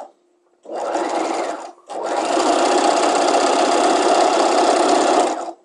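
Sewing machine stay-stitching along a skirt hem, running in spurts: a run of about a second, a brief stop, then a steady run of about three and a half seconds before it stops.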